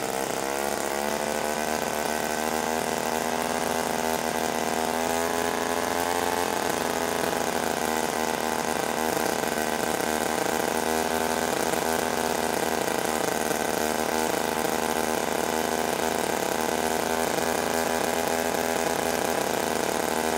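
Small see-through Wankel rotary engine running at high, steady revs, giving a buzzing, even tone. Its pitch edges up slightly a few seconds in.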